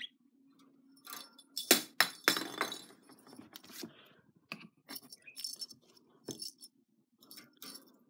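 A plastic lattice ball toy clattering and clinking irregularly against the bars of a wire budgie cage, in a run of uneven knocks that is loudest about two seconds in. A budgie gives one short chirp right at the start.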